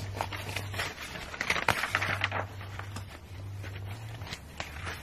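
Sheets of drawing paper rustling and crinkling as a page of a large hand-made paper book is turned, with small clicks of handling; the rustle is loudest about two seconds in.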